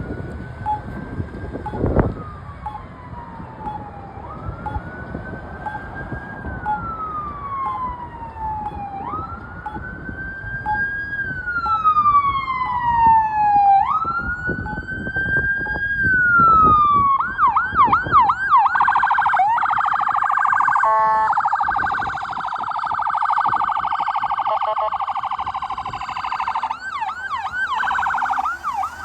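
Electronic siren of a responding fire-department emergency vehicle on a slow wail, rising and falling every few seconds. After about seventeen seconds it switches to a fast yelp, with a low vehicle rumble underneath and a single knock about two seconds in.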